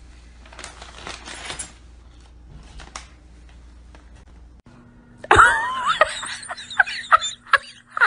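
Faint scratching and rustling in the first couple of seconds, then, about five seconds in, a loud run of short, sliding vocal cries.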